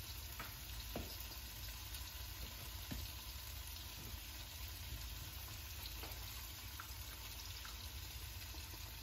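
Green beans sizzling steadily in a hot sauté pan, with a few faint clicks and taps scattered through.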